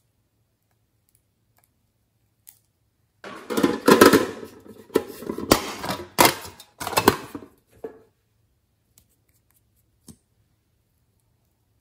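A small lipstick case handled up close: about four seconds of scraping and rattling broken by several sharp clicks, then one faint click near the end.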